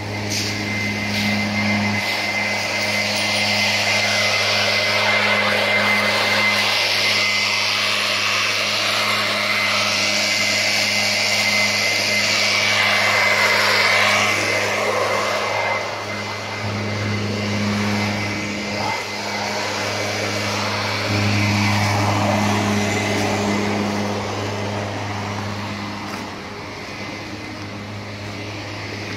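Leaf blower running steadily: a constant motor hum under a loud rush of air. It is louder in the first half and grows fainter toward the end.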